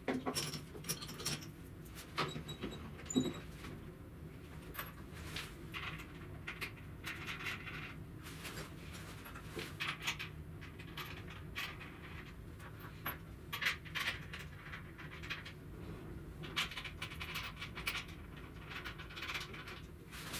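Fast-forwarded workshop handling sounds: rapid, irregular clicks and clatters of small metal parts and tools being handled while a drill press table is taken apart.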